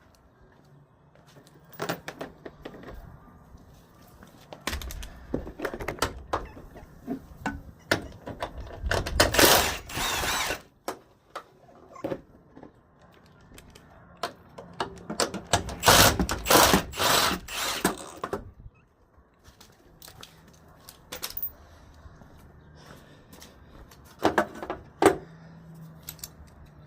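Hand work on a truck's door hinges: scattered metallic knocks, clunks and clicks, with two longer dense clusters of clattering about a third and two thirds of the way through.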